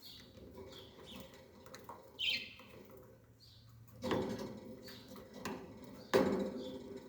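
Short high chirps repeating every second or so, one sliding downward about two seconds in. Two sharp knocks come about four and six seconds in, the second the loudest.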